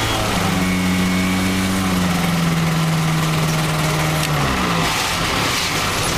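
Kitfox IV floatplane's Rotax engine and propeller running steadily at taxi power, heard from inside the cockpit. About four seconds in the pitch steps down as the throttle is eased back.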